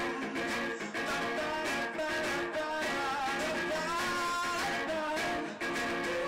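Live song from two strummed guitars with a man singing over them.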